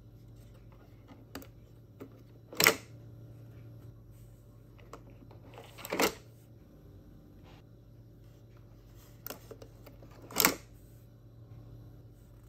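Plastic ink cartridges clicking and scraping as they are pulled out of the ink bay of a Brother MFC-440CN printer. There are three distinct clacks, the first the loudest, a few seconds apart, with lighter ticks in between. A faint low hum runs under them.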